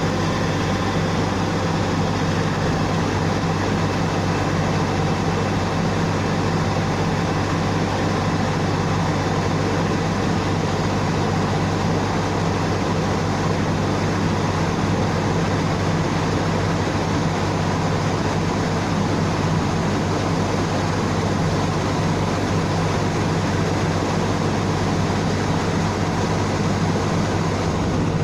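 Rice combine harvester's engine running steadily with a low, even hum.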